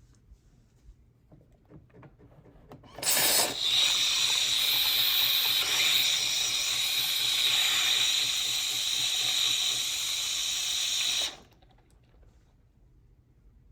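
Jura Z10 super-automatic coffee machine's milk system hissing for about eight seconds as it draws cleaning solution up and sprays it out through the milk spout during the milk system clean, then cutting off suddenly. Faint ticks come before it.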